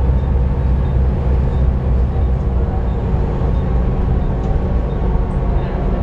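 Volvo B7TL double-decker bus running, a steady low drone with several held tones over it.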